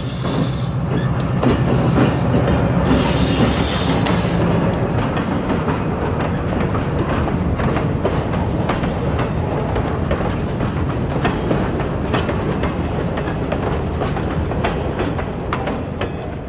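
An EMD SW900 switcher locomotive's diesel engine runs as it passes close by in the first few seconds, with a thin high wheel squeal. Boxcars then roll past, their wheels clicking over the rail joints, and the sound fades slightly near the end.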